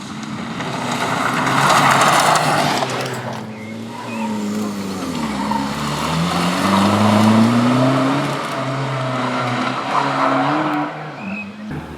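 Rally car at full throttle, its engine note climbing and dropping several times as it changes gear, with a loud rush of noise about two seconds in.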